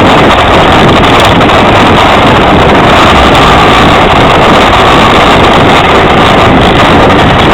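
Yamaha XTZ 750 Super Ténéré's parallel-twin engine running on a rocky dirt track, largely buried under heavy wind noise on the onboard microphone. The recording is loud and steady, with no single event standing out.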